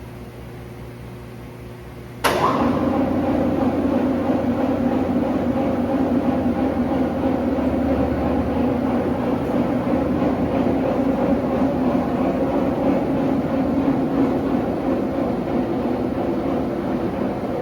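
Electric tilt drive of a 40,000 lb Ransome welding positioner starting suddenly about two seconds in and running steadily as it raises the table back up. Before it starts, a low steady hum.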